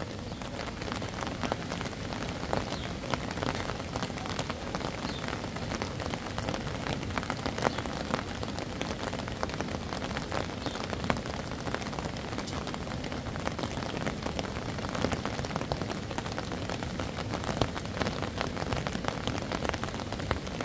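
Steady rain falling and dripping onto surfaces: an even hiss with many small sharp ticks.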